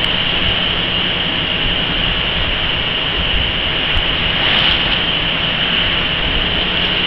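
Foam vacuum compression machine running with a steady machine noise: a constant high whine over a low hum.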